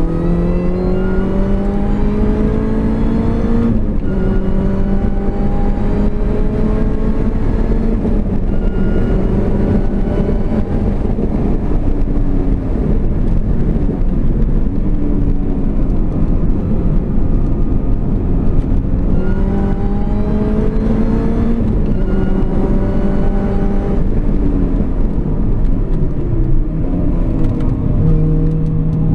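R53 Mini Cooper S's supercharged 1.6-litre four-cylinder engine under hard acceleration on track, heard from inside the cabin: the revs climb, drop at an upshift about four seconds in and hold high, fall away in the middle for braking and cornering, then climb hard again around nineteen seconds with another shift, and fall off again near the end.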